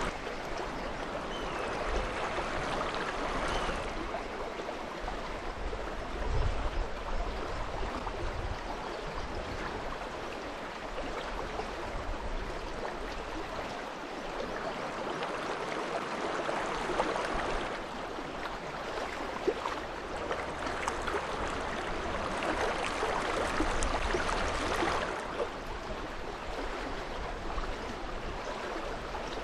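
River water rushing in a steady noise that swells and eases several times.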